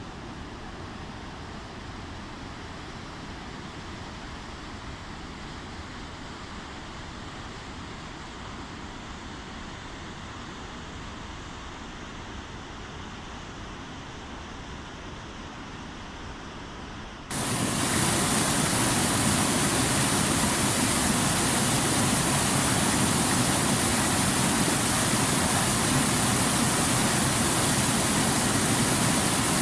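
Steady rushing water of a waterfall. About seventeen seconds in it jumps abruptly to a much louder, brighter rush.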